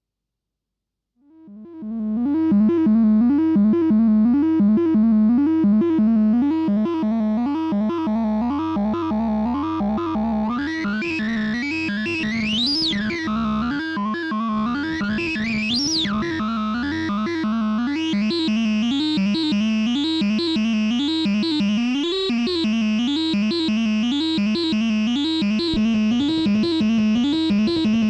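Mutable Instruments Anushri synthesizer playing a looping sequenced bass pattern over its built-in drum machine. It starts about a second in. Midway the tone sweeps up and back down twice, and it stays brighter after that.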